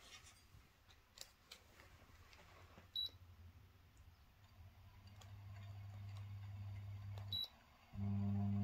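Low electrical mains hum from powered equipment. It builds gradually, cuts off together with a short high beep, then comes back abruptly and much louder near the end. A few faint clicks and an earlier short beep come before it.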